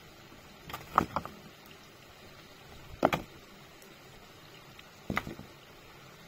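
Three sharp knocks of something hard being struck, about two seconds apart, each followed by a quick smaller knock or two.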